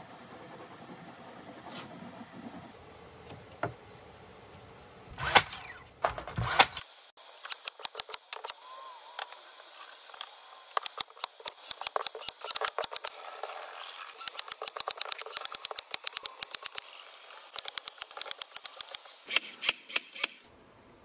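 Plywood strips knocking and clacking against each other as they are handled and laid together for a glue-up. It starts with a few louder knocks, then turns into long runs of rapid sharp clicks.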